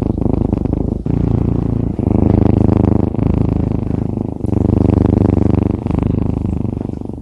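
A cat purring loudly, close up, in stretches of about a second or so with short breaks as it breathes in and out.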